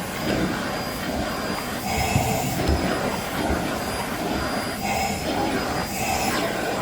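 Steady rushing of a powered air jet blown over a golden retriever's coat, with a faint high whine running under it.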